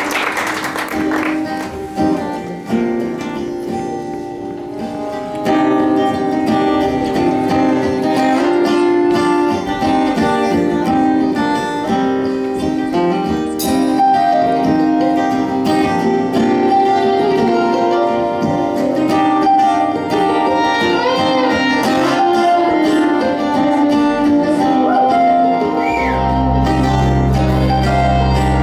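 Acoustic string band playing an instrumental intro on mandolin, banjo, acoustic guitar and upright bass, filling out about five seconds in. A deep upright bass note comes in low near the end.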